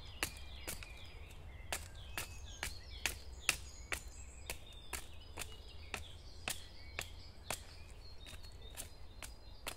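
Irregular sharp taps, about two a second and varying in strength, over small birds chirping.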